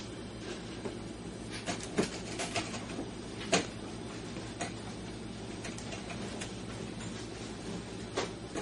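A few scattered light knocks and scrapes as a dog bumps a baguette held crosswise in its mouth against the edges of its crate opening, trying to drag it in. The loudest knock is about three and a half seconds in, over a steady low hum.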